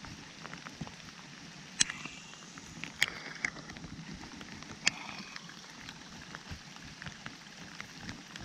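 Steady rain falling, with a few sharp taps that ring briefly, about one every second or two.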